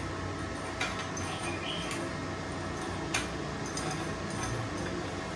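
A few light clicks and clinks of steel pieces being handled and set in place on a workbench, over a faint steady hum.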